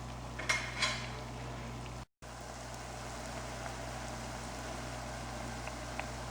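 Hot oil sizzling steadily around bolinho de chuva dough balls deep-frying in a pan, with a couple of light clicks about half a second to a second in.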